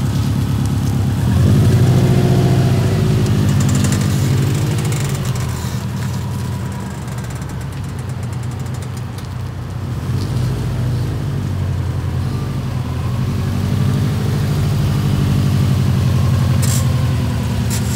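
Subaru WRX's turbocharged flat-four running, its hum swelling and easing a couple of times, with the creaking/screeching noise of a bad passenger-side front wheel bearing. A couple of sharp clicks come near the end.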